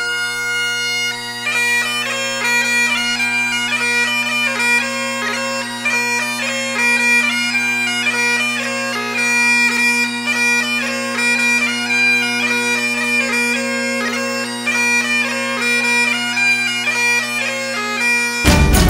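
Bagpipe music: steady low drones held under a chanter melody. It breaks off shortly before the end as louder, denser music cuts in.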